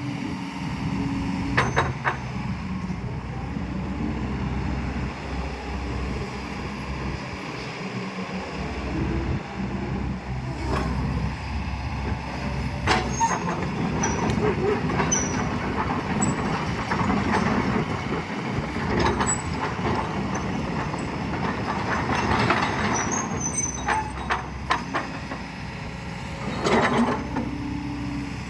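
Kobelco hydraulic excavator's diesel engine running steadily, with repeated sharp metallic clanks and faint high squeals from the working machine.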